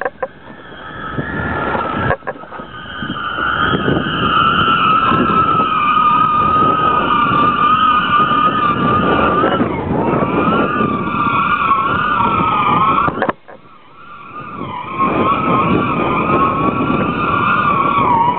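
Wind rushing over the microphone of a camera hung on a power-kite line, with a wavering, siren-like whine from the taut kite rig humming in the wind. The sound drops out briefly about two-thirds of the way through.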